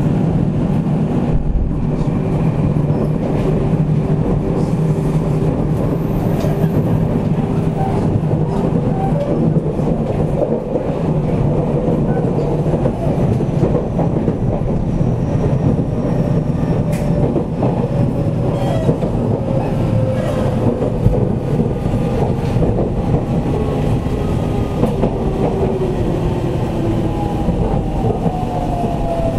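Steady running noise inside a JR 313 series 8000-subseries EMU motor car (KuMoHa 313-8502), wheels on rail and body rumble. In the second half a set of motor tones slides slowly down in pitch as the train slows.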